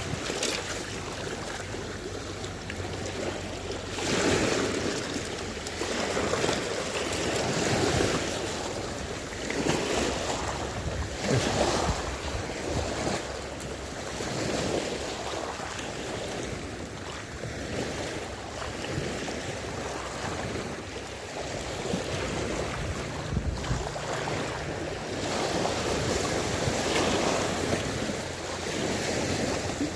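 Waves washing in, swelling and easing every few seconds, with wind buffeting the microphone.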